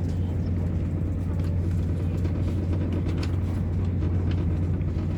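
Steady low drone of a Class 221 Super Voyager diesel multiple unit on the move, its underfloor diesel engines and running gear heard from inside the carriage, with a few faint clicks.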